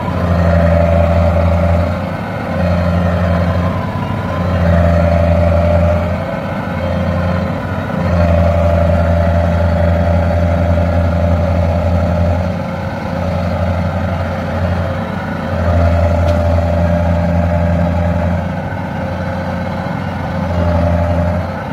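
Rice combine harvester's diesel engine working hard under load, swelling and easing in about six surges as the machine strains to pull free of deep, sticky mud.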